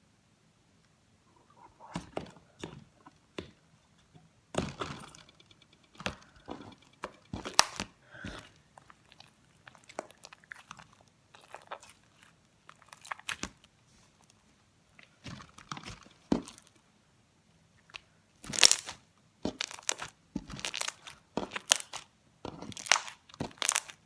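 Sticky homemade slime being squeezed and stretched by hand, giving irregular sharp crackling clicks and pops in clusters, starting about a second and a half in.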